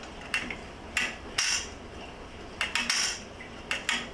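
Sharp metal clicks and clinks, about eight at irregular spacing with a few bunched together near the end, from steel seat slider-rail parts and their latch wire being handled and fitted.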